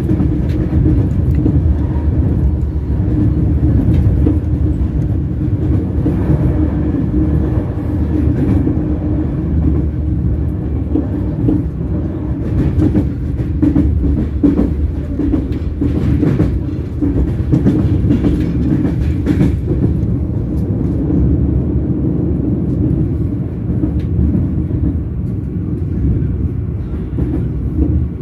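Train wheels rolling on the rails: a steady low rumble with a humming tone, and scattered sharp clicks and knocks through the middle stretch.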